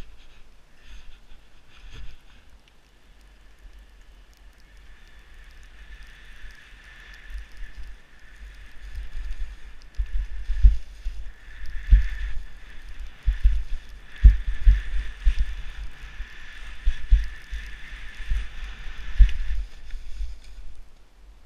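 Skis sliding and carving over snow with a steady hiss, and wind buffeting the helmet camera's microphone in irregular low thumps that grow strong about halfway through. Both stop shortly before the end as the skier comes to a halt.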